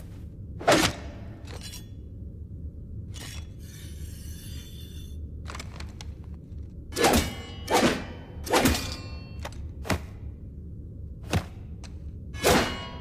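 Metal sword blade struck, sharp clangs each with a short ringing tail, once early on and then in a run of about six strikes in the second half. About four seconds in there is a longer rasping scrape.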